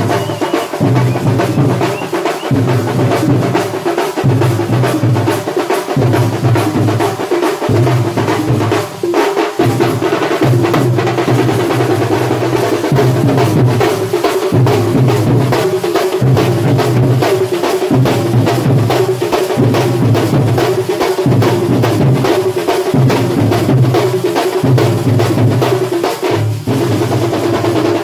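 Thambolam festival percussion troupe playing a fast, driving rhythm on drums, with heavy, bass-boosted bass-drum beats under dense, busy percussion.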